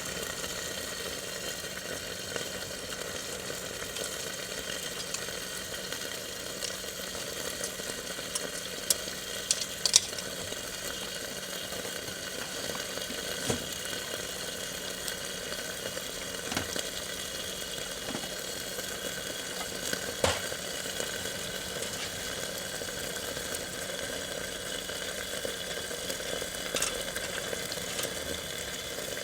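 Meat and garlic scapes sizzling steadily in an iron frying pan under a heavy steel lid, over a wood fire, with a few sharp pops and crackles, a quick cluster of them about nine to ten seconds in.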